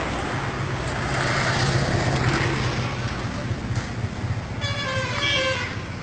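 Roadside traffic noise with a steady low engine hum, and a vehicle horn honking for about a second near the end.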